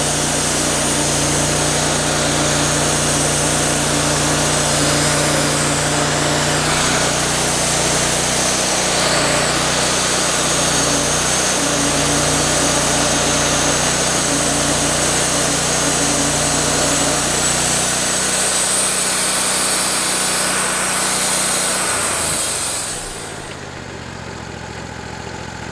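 Wood-Mizer LT40 band sawmill running under load, its engine droning steadily and the band blade hissing through a large pecan log. About 23 seconds in the engine winds down to a lower, quieter idle as the cut finishes.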